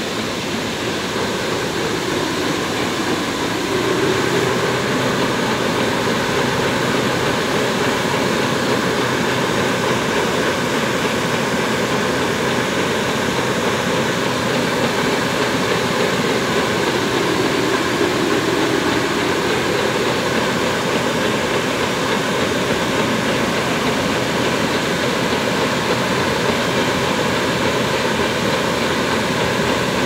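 Air-blast orchard sprayer's 75 cm axial fan running, blowing a steady rushing stream of air and spray mist out through its nozzles. It gets a little louder about four seconds in.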